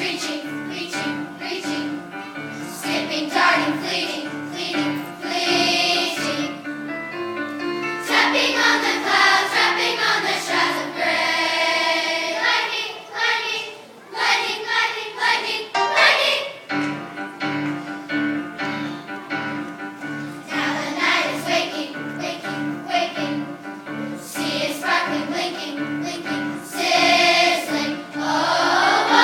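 Children's choir singing a song over steady instrumental accompaniment, which drops out briefly about halfway through.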